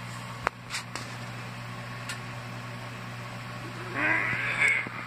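Microwave oven running with a steady low hum. There is a sharp click about half a second in, and a short wavering cry near the end.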